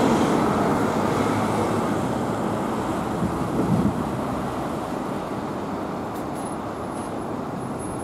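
Road traffic passing on a multi-lane road: a steady rumble of vehicles and tyres, loudest at the start and fading slowly away.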